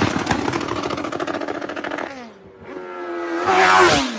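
Motorcycle exhaust crackling in a fast string of pops, like a firecracker string, for about two seconds as the revs drop. Then the engine is revved again near the end, rising and falling.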